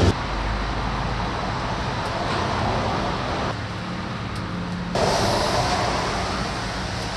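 Road traffic: a steady wash of car tyre and engine noise from passing vehicles.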